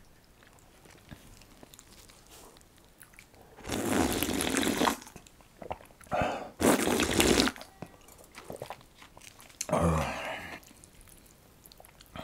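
Slurping of watermelon-noodle broth drunk straight from a hollowed-out watermelon half. There is a long slurp about four seconds in, two more close together around six to seven seconds, and a shorter breathy one near ten seconds.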